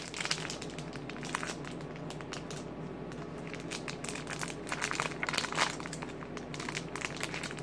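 Crinkly wrapper around a small toy being crumpled and worked open by hand: irregular crackling, with a louder flurry of crackles about five seconds in.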